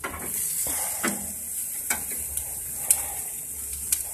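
Ribs and chicken sizzling on an open propane gas grill: a steady high sizzle with about six sharp pops spread through it.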